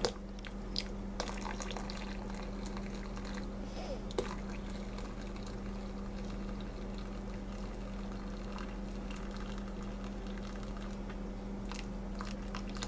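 Hot distilled water being poured into a container on a kitchen scale: a steady run of liquid with a few small clicks, over a constant low hum.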